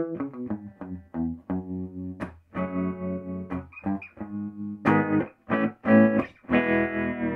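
Hollow-body electric guitar played through a Univox U-1226 tube amplifier: a run of short chord stabs and single notes, then a chord left ringing near the end.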